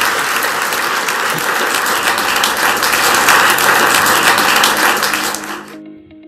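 Audience and panel applauding, a dense steady clapping that cuts off abruptly near the end, leaving soft background music with repeated plucked notes.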